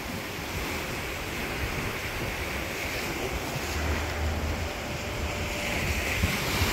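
Rough sea waves breaking and washing, with wind blowing on the microphone and a low buffeting about four seconds in.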